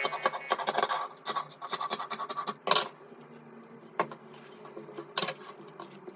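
Scratching and rubbing from fabric work, with a quick run of irregular clicks for the first couple of seconds and then a few single clicks, over a faint steady hum.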